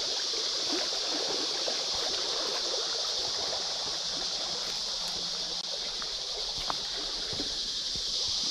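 Loud, steady high-pitched buzzing of a cicada chorus, over creek water trickling and rippling past rocks.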